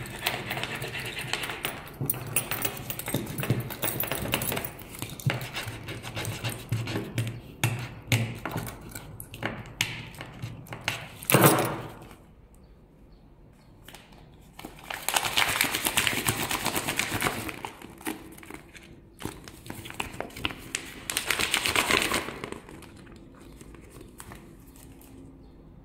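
Rapid, rough scrubbing and scratching against the coated surface of a printed photo board, in continuous bouts: one long bout peaking in a loud scrape about eleven seconds in, then after a pause two shorter bouts, going quiet near the end.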